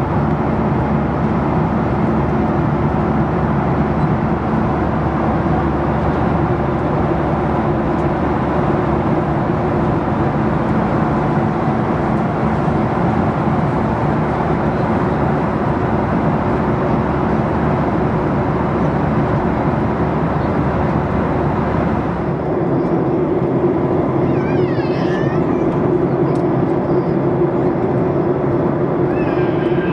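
Steady in-flight cabin noise of a Boeing 737-800: engine and airflow noise with a low, even hum. About three-quarters of the way through the sound shifts, the deep rumble dropping and a higher steady hum standing out, with a few faint, brief high sliding sounds.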